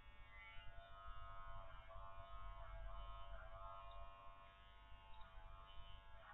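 Electric dog clippers running with a steady, faint buzz as they cut through a thick curly coat, the pitch wavering slightly.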